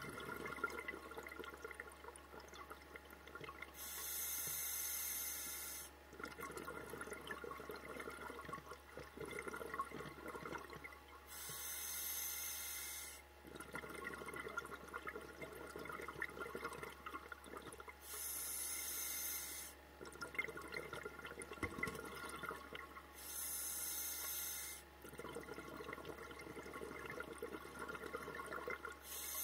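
Scuba diver breathing through a regulator underwater: a hissing inhalation of about two seconds, then a longer bubbling exhalation. The cycle repeats about every six seconds, four times.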